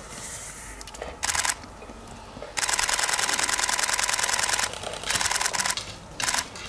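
Camera shutters firing in rapid bursts: a short burst about a second in, a long run of about two seconds in the middle, then two short bursts near the end.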